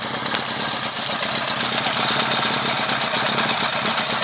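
Honda CBR1000 motorcycle's inline-four engine idling steadily, with a single sharp click about a third of a second in.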